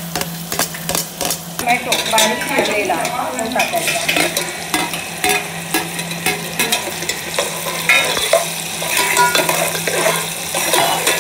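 Chopped onion frying in hot oil in a steel pot, sizzling while a steel spoon stirs and scrapes against the metal, with frequent short clicks and scrapes. A steady low hum runs underneath.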